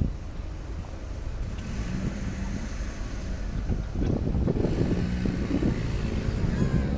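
Street background noise: a low rumble of traffic and wind buffeting a phone's microphone, growing louder about four seconds in.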